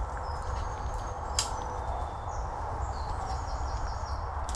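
Woodland birds singing in short high whistles, with a quick trill about three seconds in, over the steady rustle of walking through undergrowth. A single sharp click sounds about a second and a half in.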